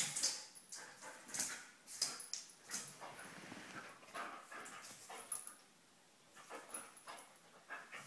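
A podenco dog whimpering in short bursts while it play-fights with a kitten, among quick scuffling and claws scrabbling on a wooden floor.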